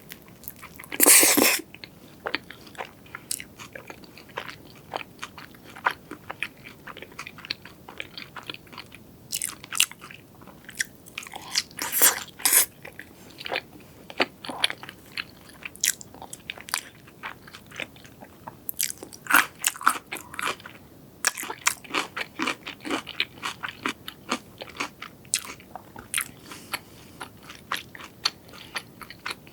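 Close-miked eating of crunchy food: crisp bites and chewing. The loudest crunch comes about a second in, with more strong crunches later and a run of small crackles in between.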